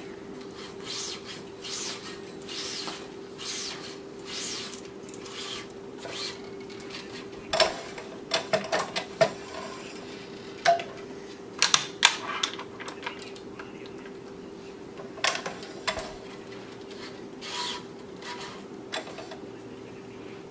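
Tennis racquet being strung on a stringing machine, sped up: the string swishes as it is drawn through the frame about once a second, then comes a run of sharp metallic clicks and clinks from the tensioner and clamps, over a steady hum.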